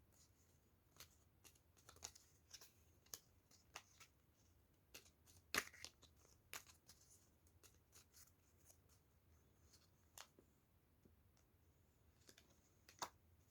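Faint oracle-card shuffling: scattered soft clicks and snaps of cards, with a slightly louder snap about five and a half seconds in.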